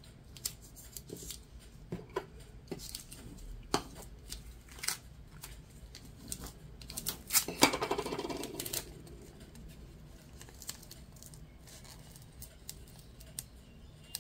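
Holographic vinyl decal being handled and peeled from its backing sheet: scattered small crinkles and clicks, with a louder crinkling stretch about halfway through.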